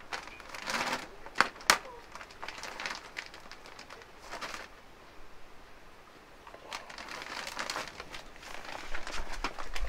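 Plastic soil bag being cut open with scissors and handled: two sharp snips about a second and a half in, then bursts of plastic crinkling on and off as the cut top is pulled open and folded back.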